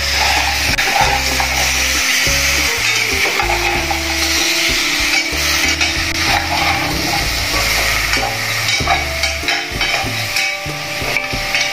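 Pieces of pork leg sizzling and frying in a stainless steel pot, stirred with a metal ladle: a steady, dense sizzle with small scrapes and clicks from the ladle.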